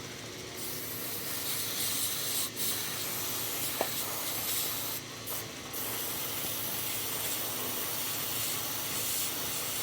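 Aerosol can of CRC Freeze Off penetrating spray being sprayed onto a rusted nut: a long steady hiss, broken by a couple of short pauses.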